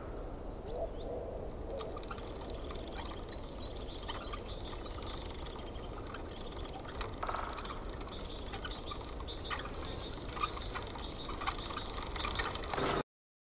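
Rural outdoor ambience: a steady low rushing noise with small birds chirping now and then. It cuts off suddenly near the end.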